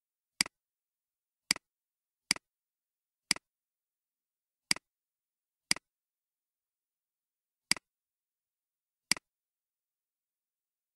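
Eight computer mouse clicks at uneven intervals, each a sharp press followed at once by a softer release, as tree items are clicked open and shut.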